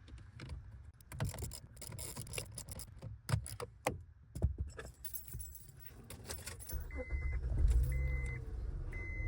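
Keys jangling for several seconds, then the Honda Ridgeline's V6 engine starting about seven seconds in and running, with a short warning chime beeping about once a second.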